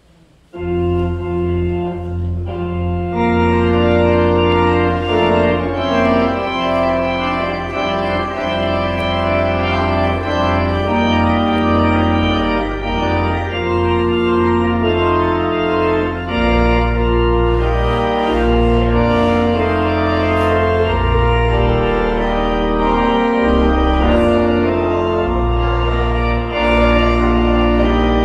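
Organ music: held chords over deep bass notes, starting suddenly about half a second in.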